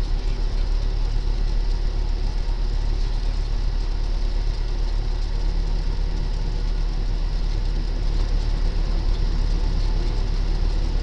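Cessna 172 Skyhawk's piston engine and propeller droning steadily, heard from inside the cabin on approach to land, with a slight shift in its tone about halfway through.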